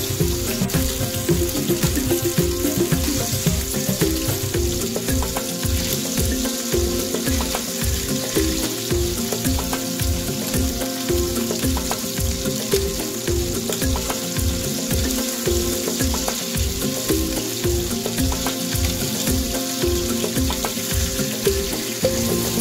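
Hilsa fish steaks sizzling steadily as they shallow-fry in hot oil in a pan, over background music with a steady beat.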